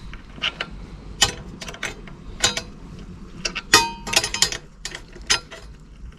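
Irregular metallic clicks and clinks of hand tools and parts being fitted on a pit bike's clutch and gear-shift assembly. A few strikes ring briefly, and a quick cluster of clicks comes about four seconds in.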